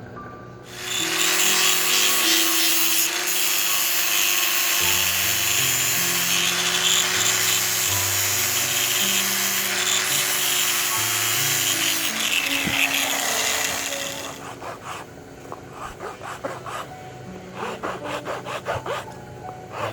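A power tool abrading the work runs steadily for about thirteen seconds, then stops, and quick repeated hand rubbing strokes follow, a few a second. Background music plays throughout.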